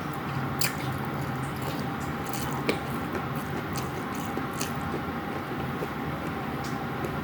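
Close-miked mukbang chewing: a person eating a rice meal with wet, squishy mouthfuls and a few sharp clicks, over a steady low hum.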